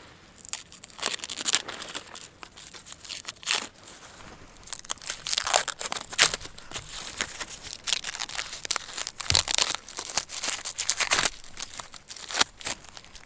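Irregular crinkling and crunching handling noise, with sharp crackles scattered throughout and several louder spikes.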